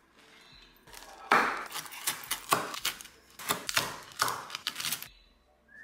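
Large kitchen knife chopping through a thin-crust pizza onto a wooden cutting board: a run of about eight sharp knocks over three or four seconds.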